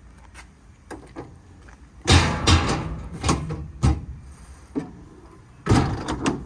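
Compartment doors on an Alter Industries truck service body being shut and their stainless paddle latches worked: a series of metal clacks and bangs, the loudest about two seconds in, several more over the next two seconds, and another cluster near the end.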